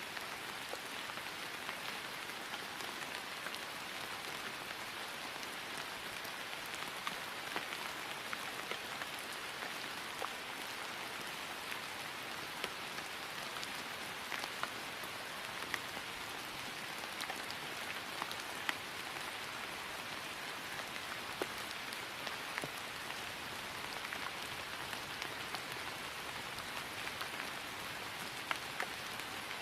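Steady rain falling on grass, an even patter with individual drops ticking through it.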